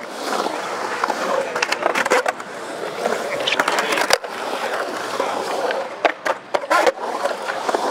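Skateboard wheels rolling steadily through a concrete bowl. The rolling is broken by sharp clacks of the board and trucks hitting the concrete, about two and four seconds in, then three more close together near the end.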